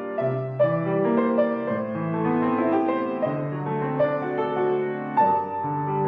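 Piano music: a melody moving over a line of lower bass notes.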